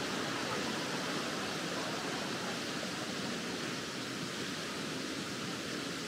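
Steady rush of a 32 m waterfall, an even hiss with no breaks.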